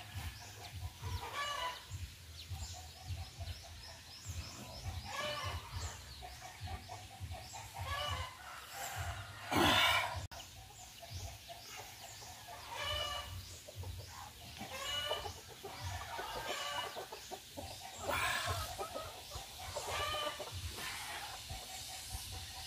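Native chickens and roosters calling at intervals, with clucks and crows. About ten seconds in there is one brief, loud rasping burst.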